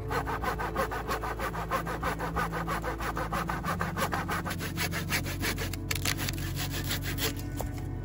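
Hand saw cutting through wood in quick, even strokes, about five a second, that stop about seven seconds in.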